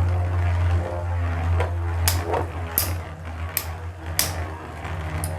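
Two spinning battle tops whirring against each other in a stadium over a steady low hum, with about five sharp clacks as they collide in the second half.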